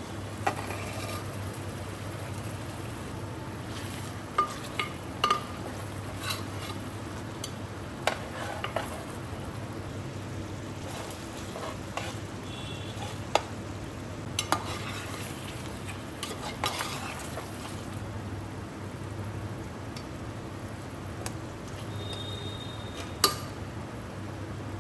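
Mutton korma frying and sizzling in a pot while a spoon stirs it, clinking and scraping against the pot every few seconds, over a steady low hum.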